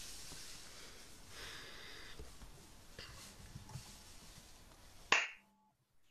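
Faint background room noise over an open video-call microphone, with a few light clicks. About five seconds in comes one sharp, loud pop, and then the sound cuts out almost to silence.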